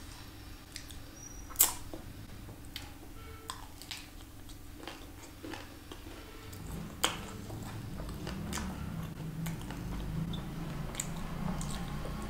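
A metal spoon clicks sharply against a plate a couple of times, about a second and a half in and again about seven seconds in. After that come close-miked eating sounds: chewing and mouth noises over mouthfuls of dahi puri.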